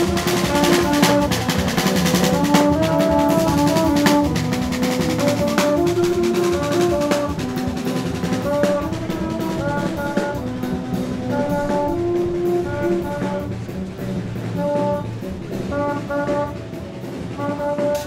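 Street brass band playing a tune over drums: a melody of held horn notes with steady percussion beneath. It grows fainter about halfway through.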